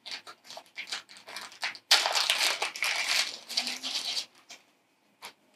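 Thin plastic shrink-wrap crinkling as it is picked open and peeled off a small deck of cards, at its busiest about two seconds in, then dying away with a single small click near the end.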